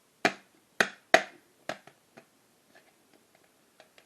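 Sharp plastic snaps and clicks as a floppy disk's shell is pried apart: four loud cracks in the first two seconds, then a scatter of fainter clicks.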